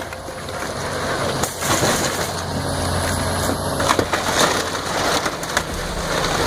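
Wood cracking and splintering as a timber structure is torn apart by heavy machinery, with many sharp cracks over a machine's steady engine hum.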